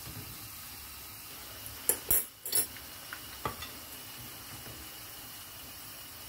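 Pumpkin fritters frying in hot oil in a pan, a steady sizzle, with a wire skimmer knocking against the pan a few times about two seconds in and once more a little later.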